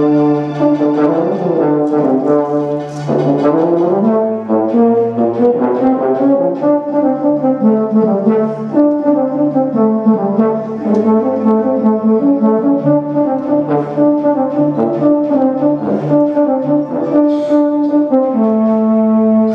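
Euphonium playing a flowing melody over steady, held low notes.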